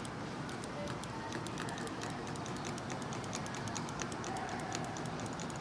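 Resistance spot-welding gun with its electrode pressed to overlapping mesh screen, giving a run of small, quick, irregular ticks as the screens fuse together.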